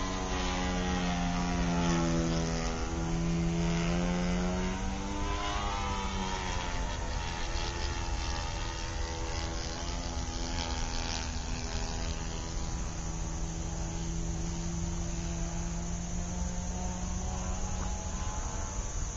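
A small engine droning, its pitch wavering and sliding upward about five seconds in, then settling lower and weaker as it carries on steadily.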